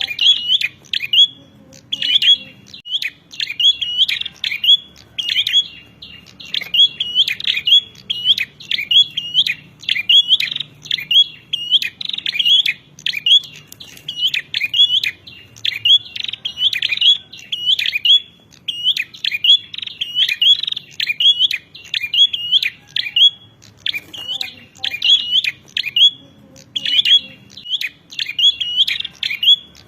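Prenjak (prinia) giving its agitated 'narung' fighting song: a rapid, continuous series of sharp, high chirps repeated in quick phrases, with a short break about 24 seconds in.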